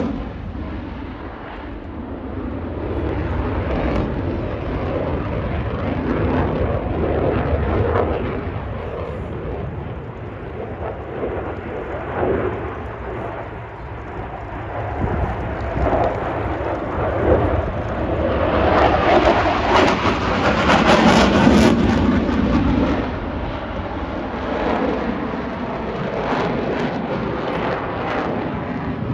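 Aircraft flying over an air show: a steady, loud engine rumble that swells to its loudest about two-thirds of the way through, then eases off.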